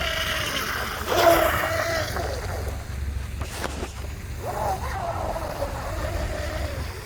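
Small brushless-motored RC boat running on the water, its motor whine wavering and rising and falling with the throttle. It is loudest about a second in, over a steady low rumble of wind and water.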